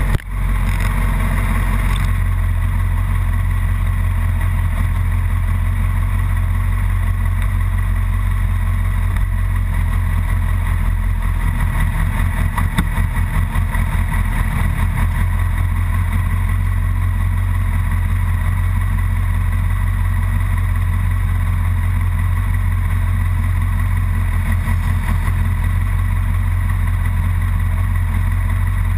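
Sport motorcycle engine idling steadily, with a second motorcycle riding slowly past about halfway through.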